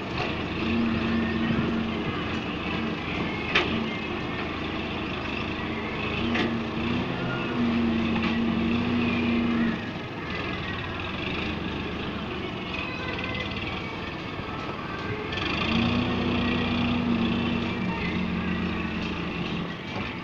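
Tractor's diesel engine running and working the hydraulic sugarcane grab loader. It goes up to higher revs in three spells of a few seconds each as the grab lifts cane. There is one sharp click about three and a half seconds in.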